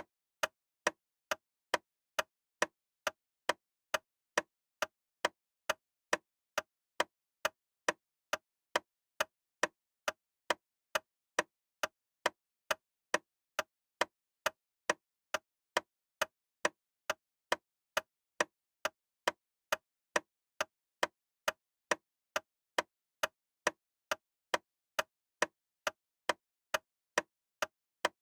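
A sharp, dry tick repeating evenly about twice a second, with silence between the ticks.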